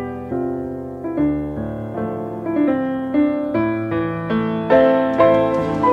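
Slow, gentle piano music, notes and chords struck about two to three times a second, each one fading, growing louder near the end.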